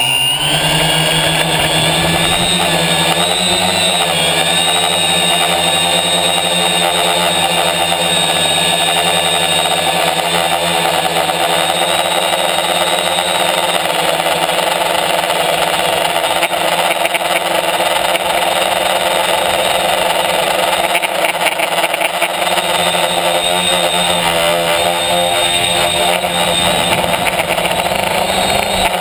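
Electric motors and propellers of a multirotor tricopter, heard up close from its onboard camera: the buzz climbs in pitch right at the start as it lifts off, then holds steady with small rises and dips in pitch as the throttle changes in flight.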